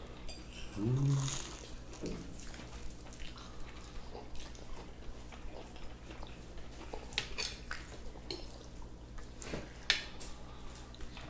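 Quiet table eating sounds: forks clinking lightly on plates and chewing, with a brief murmured voice about a second in and a couple of sharper clinks near the end, over a faint steady hum.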